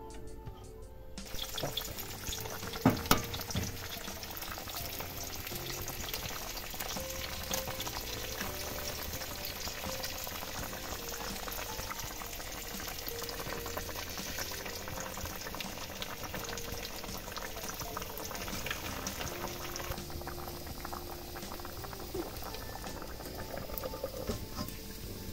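Egg curry gravy boiling hard in a kadai: a dense, steady bubbling and crackling that sets in about a second in. Two sharp knocks about three seconds in.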